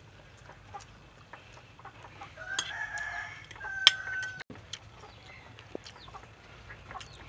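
A rooster crowing, starting about two and a half seconds in and lasting nearly two seconds, with a sharp click near its end and a few light clicks around it.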